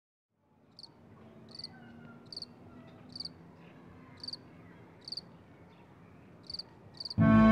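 Crickets chirping faintly, one short high chirp about every second over a low hiss of night ambience. Music comes in suddenly near the end.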